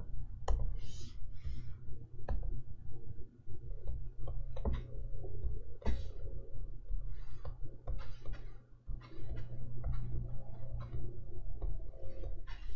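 Stylus nib tapping and stroking on the screen of an XP-Pen Artist 15.6 Pro pen display: irregular light taps and short scratchy strokes, over a low steady hum.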